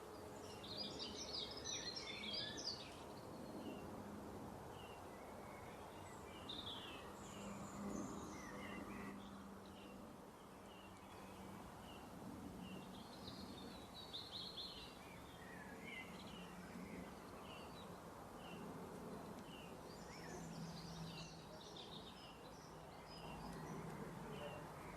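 Birds chirping and twittering in short repeated notes, with denser bursts of chatter now and then, over a faint steady low hum.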